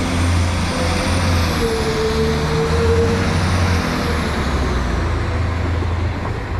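Diesel train engine running steadily, a loud low drone with a whine above it that wavers in pitch.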